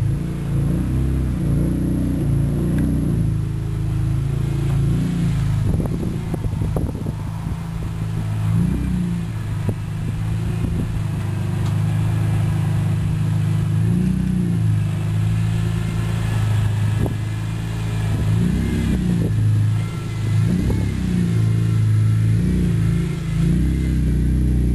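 BMW E46 M3's S54 straight-six idling through a Solid Design titanium aftermarket muffler, with a few short throttle blips whose pitch rises and falls.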